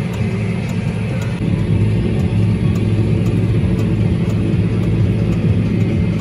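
Farm tractor engine running steadily under load while pulling a seed drill, growing louder from about two seconds in as the tractor picks up speed.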